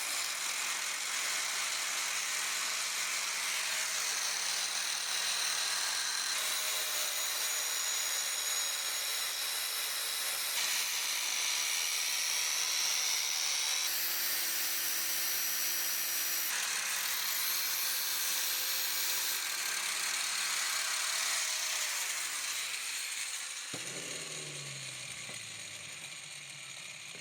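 Power grinder sharpening a steel axe blade: a steady high grinding hiss with a whine. Near the end the grinding stops and the motor winds down, its pitch falling.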